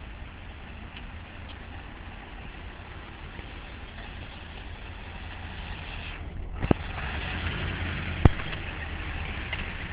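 Steady road and wind noise of a bicycle ride through wet city streets, heard through a phone's microphone, growing louder about two-thirds of the way in, with two sharp knocks about a second and a half apart.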